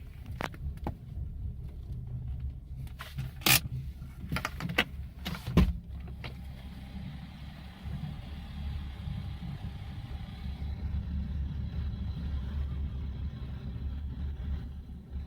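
BMW E60 engine idling with a steady low rumble. The idle is uncertain and its rpm wanders at random, which the owner links to a newly replaced vacuum pump. A few sharp clicks and knocks sound over the idle in the first half, two of them loud, about three and a half and five and a half seconds in.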